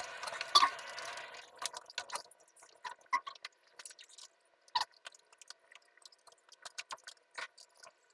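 Light, irregular clicks and taps of plastic PP-R pipe fittings being handled and fitted against the pipes, with a louder scrape of handling in the first second and a sharper knock a little before the fifth second.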